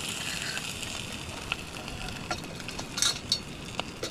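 Brown trout cooking with a steady sizzle. Scattered sharp clicks come through in the second half.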